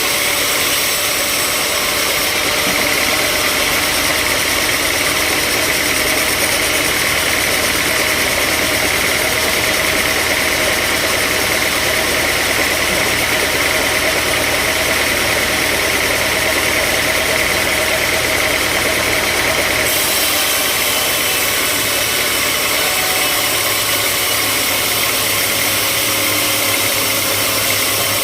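Sawmill machinery running steadily and loudly, with a steady high-pitched whine over the running noise; the sound shifts slightly about twenty seconds in.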